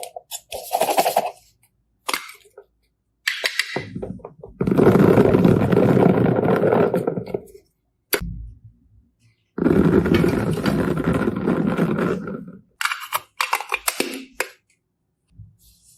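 Slime being squished and pressed by hand, with crackling, popping air pockets: short squishes with two long stretches of dense crackling, one about five seconds in and one about ten seconds in.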